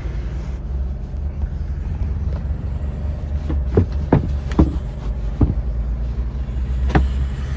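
Steady low rumble of an idling engine, with a few sharp knocks and taps about halfway through and one more near the end.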